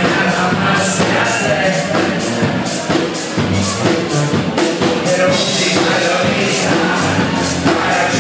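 A band playing a song live, with a singer over a steady, quick beat.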